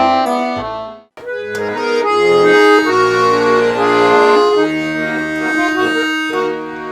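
Garmon (Russian button accordion) playing sustained chords with a bass line; the sound breaks off about a second in, then a new tune's introduction starts up.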